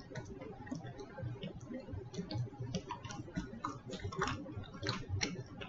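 A person chewing fried food close to the microphone: irregular soft clicks and smacks of the mouth, a few louder ones about four and five seconds in.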